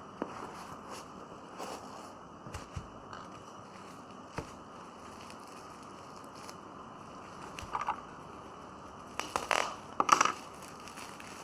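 Scattered clicks, taps and crinkling of packaging being handled, with a few louder rustling bursts about eight, nine and a half and ten seconds in.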